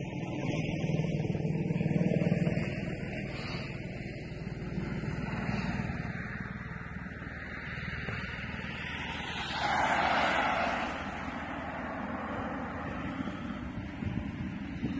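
Car traffic on a street: a steady low rumble of engines and tyres, with a louder swell about ten seconds in as a vehicle passes.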